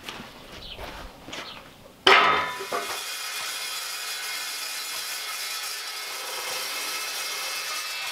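Evolution chop saw starting with a sudden loud burst about two seconds in, then running with a steady high whine. Before that, softer handling knocks as the steel angle is set in place.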